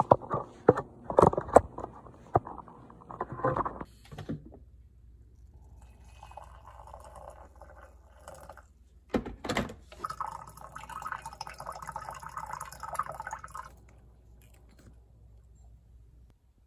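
Footsteps in soft slippers on carpet, then water poured from a kettle into a mug, with a few knocks about halfway through and a longer pour after them.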